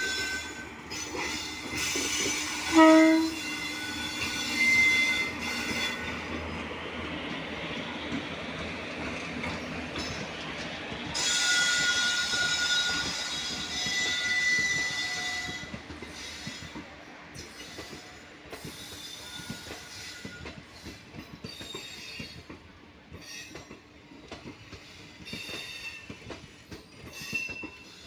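Electric locomotive hauling a passenger train past. It gives a short horn blast about three seconds in, then the coaches roll by with squealing wheels and clattering rails, and the noise eases off in the second half.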